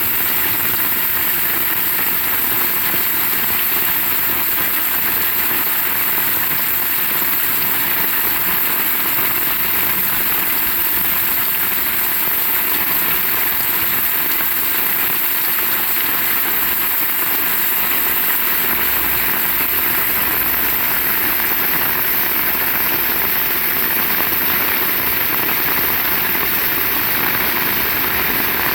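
Heavy rain falling steadily, an even hiss with no change throughout.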